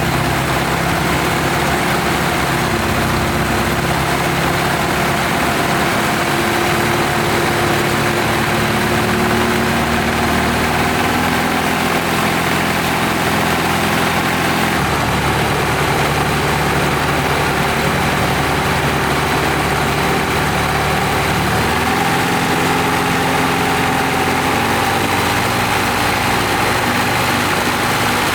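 Rebuilt aircraft piston engine running steadily at low speed on its first ground run after a top-end rebuild. Its speed shifts slightly a few times, stepping up and down.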